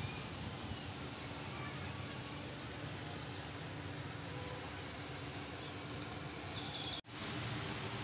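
Distant city ambience: a low steady traffic rumble with birds chirping now and then. About seven seconds in the sound cuts out for an instant and gives way to the steady hiss of rain.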